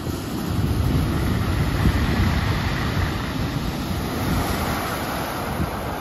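Ocean surf breaking among rocks and washing in over the beach: a low rush that swells within the first second and slowly eases off.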